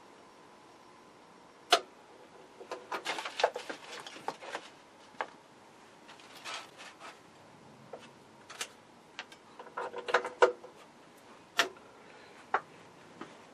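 Irregular sharp snaps from a powered-up vacuum-tube TV chassis on its test CRT, some single and some in quick clusters, the sharpest about two seconds in and again around ten to twelve seconds in: high-voltage arcing.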